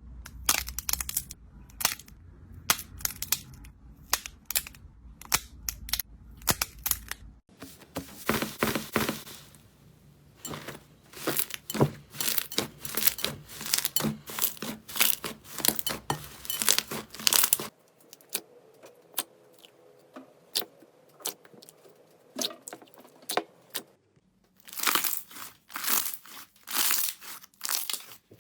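Slime being squeezed and poked by hand, with quick crackling, popping and squishing sounds. The texture changes a few times, with a quieter stretch after about 18 seconds.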